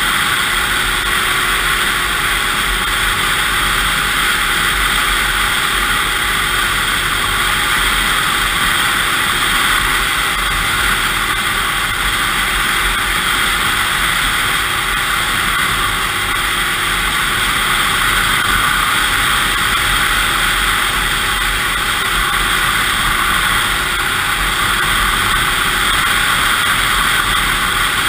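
2002 Yamaha SX Viper 700 snowmobile's two-stroke triple engine running at a steady pace while the sled is ridden along a snow trail. The sound is loud and even throughout, with no revving up or down.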